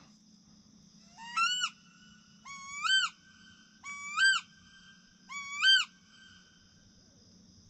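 A bird calling four times, about a second and a half apart. Each call is a short whistle that sweeps up sharply at its end.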